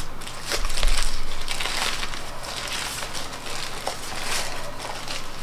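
Plastic wrapping crinkling and crackling in the hands as a log of goat cheese is peeled out of it.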